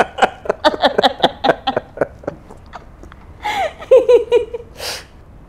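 Male laughter: a run of quick rhythmic ha-ha pulses for about two seconds, then a second burst of laughter after a short pause, ending in a brief hissing breath.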